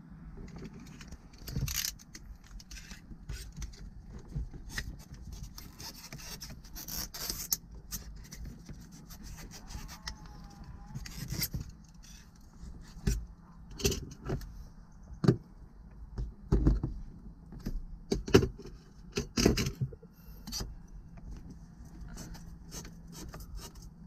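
Hand tools scraping and clicking against the plastic trim and glass at the top of a car windshield while prying trim and the antenna wire loose, with irregular small knocks and clicks, sharpest in a cluster in the second half.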